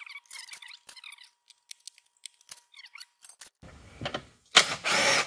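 Handheld power driver backing out the valve body bolts of a TH350 automatic transmission: light metallic clicks and rattles, then a loud burst of the driver running for under a second near the end.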